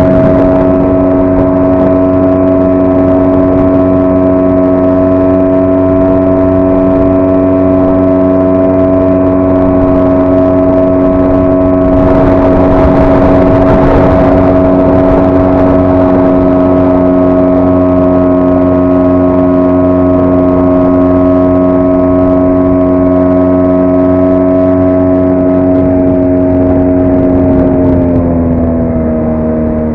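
5 hp outboard motor running at a steady high speed under way. A rush of noise rises over it for a few seconds midway, and near the end the engine speed drops as the throttle is eased off.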